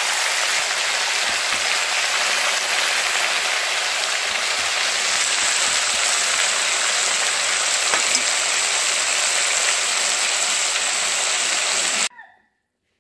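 Chicken and potato pieces sizzling steadily in hot oil in a pan as they are stirred with a metal spatula. The sizzle cuts off abruptly near the end.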